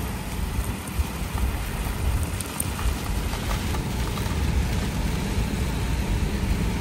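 Steady road noise of a vehicle driving on a rain-soaked road, heard from inside the cab: a low rumble with tyre hiss.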